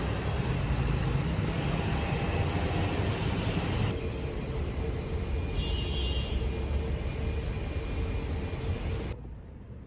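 Steady low rumble of a moving vehicle, which cuts off abruptly about nine seconds in.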